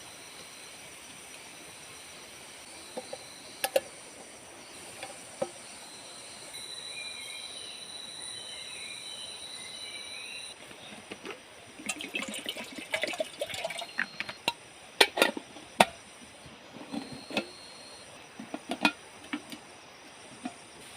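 Forest ambience with insects droning steadily at a high pitch and a few chirps. Through the second half come a run of sharp knocks, clicks and snaps, the loudest about fifteen seconds in.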